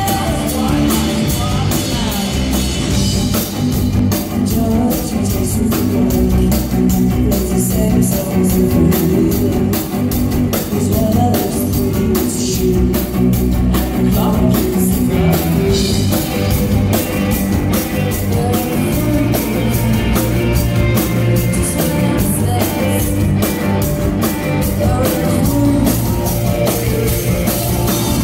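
Rock band playing live: electric guitar, bass guitar and drum kit at a steady beat, with a woman singing, recorded from among the crowd.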